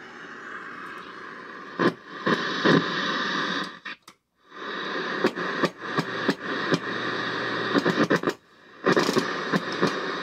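Static hiss from a 1963 RCA vacuum-tube television's speaker, with no signal fed in, broken by sharp crackles and pops. It cuts out briefly twice, near the middle and again around eight seconds in.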